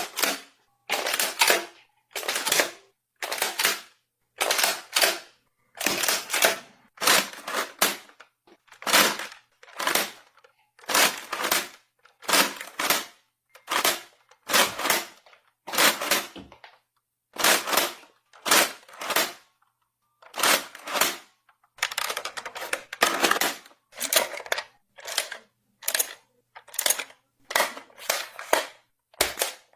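Gun reload sound effects: a long run of short clicking bursts, each a quick cluster of clacks, about one a second with brief silences between.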